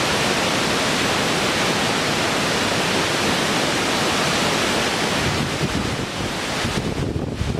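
Large waterfall pouring onto rocks: a steady, dense rush of water. Near the end the sound turns uneven, with low buffeting.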